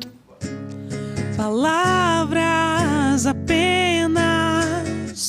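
A woman singing a slow song in Portuguese to a guitar. After a brief lull at the start, the guitar comes in, and the voice enters about a second and a half in with long held notes on the word 'palavras'.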